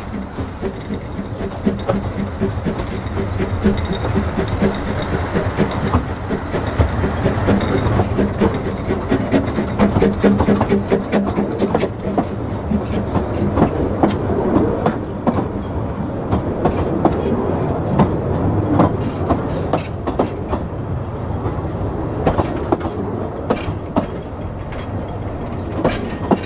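Talyllyn Railway No. 2 Dolgoch, an 1866 0-4-0 well-tank steam locomotive, working hard as it passes close by with empty coaches. Then the coaches click and rattle over the rail joints, the clicks thinning out near the end.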